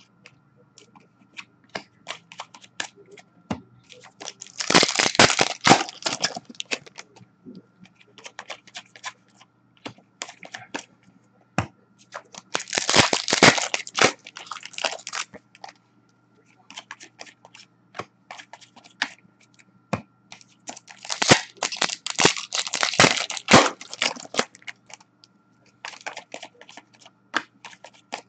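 Paper-and-foil hockey card packs being torn open by hand, in three loud crackling bursts about eight seconds apart. Between the bursts come scattered light clicks of cards being slid and flicked against each other.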